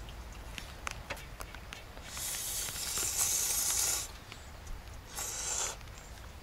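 Instant ramen noodles being slurped from a bowl: one long slurp of almost two seconds starting about two seconds in, then a shorter slurp about five seconds in. Light clicks of chopsticks against a metal bowl come in between.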